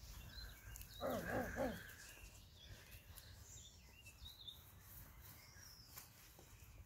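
Quiet outdoor ambience with faint bird chirps. About a second in comes a short run of three quick rising-and-falling whimpers from a Basset Fauve de Bretagne puppy tugging at a deer hide.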